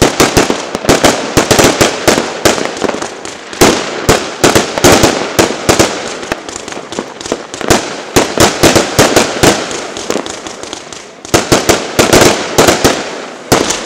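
Fireworks going off in a dense, rapid barrage of sharp bangs and crackling, thinning out about ten seconds in, then a last cluster of quick bangs near the end.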